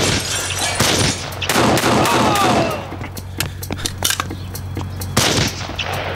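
A volley of gunshots, sharp cracks with ringing tails, comes thick in the first three seconds, and another loud shot follows about five seconds in, over background music with a steady low drone.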